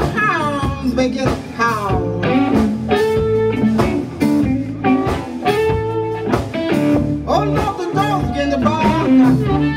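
Live blues band playing, electric guitar and bass guitar, with a woman singing into the microphone.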